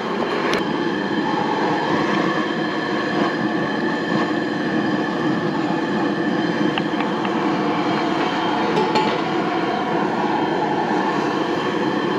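Gas jet burner running under a 35-litre stock pot at a rolling boil: a steady, loud roar, with a few faint clicks of the lid and stirring spoon.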